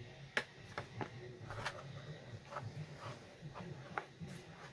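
Light, irregular clicks and taps of a small plastic cat-shaped mirror being handled while its stand is fitted on, about seven sharp ticks spread over a few seconds.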